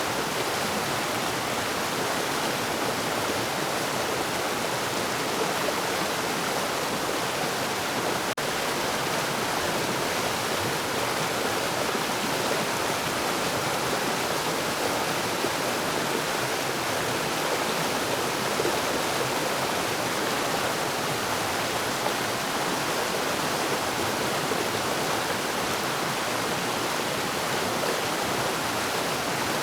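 Forest waterfall: a steady rush of falling water.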